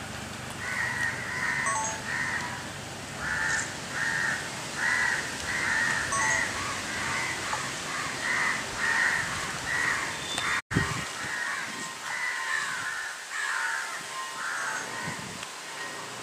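Crows cawing over and over, a long run of short, harsh calls, with a very brief dropout in the sound about two-thirds of the way through.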